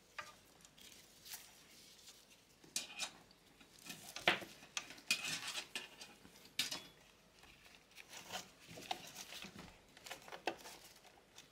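Faint, scattered clicks and brief rustling of cables and small plastic parts being handled and pulled free around a 3D printer's mainboard.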